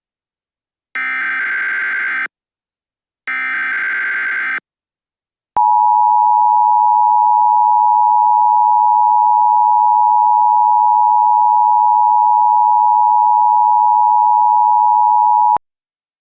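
Emergency Alert System tones: the end of one burst of the SAME digital header, then two more bursts of shrill warbling data about a second each. About five and a half seconds in comes the EAS two-tone attention signal (853 and 960 Hz), a steady piercing tone held for about ten seconds that cuts off abruptly.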